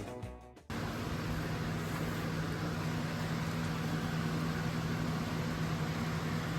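Background music fades out in the first moment. Then comes a steady low mechanical hum with an even hiss and no change.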